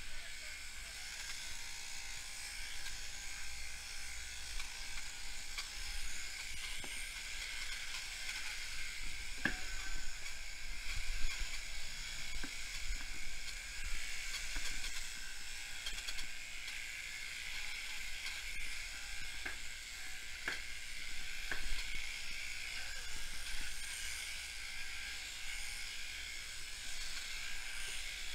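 Electric sheep-shearing handpiece running steadily, its comb and cutter shearing through a sheep's fleece, with a few sharp clicks along the way.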